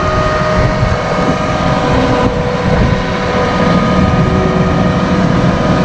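Large farm vehicle's diesel engine running steadily while under way across a field, heard from inside the cab: a low rumble with a steady whine over it.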